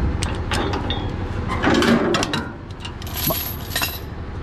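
Steel tow chain clinking and clanking against the tow truck's hook and lift as it is unhooked by hand, a string of irregular sharp metal clanks with a brief jangle near the end, over a low steady rumble.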